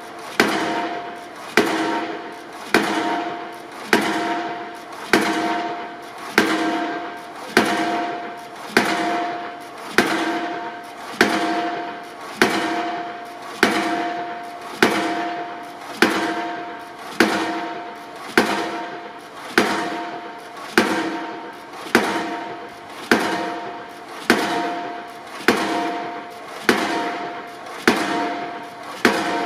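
Impact pile hammer on a piling rig driving a steel H-beam into the ground, one heavy blow about every second. Each blow leaves a metallic ring from the steel beam that dies away before the next.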